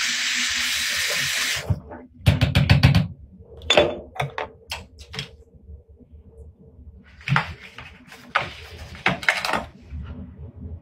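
Water running briefly, cut off after about a second and a half, then a quick rattle of about eight knocks. Scattered clicks and clatter follow, like items being handled at a bathroom sink.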